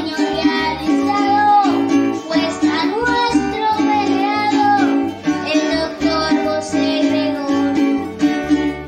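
A boy singing a Venezuelan galerón in a bending melodic line, accompanied by a Venezuelan cuatro strummed in a steady, rhythmic chord pattern.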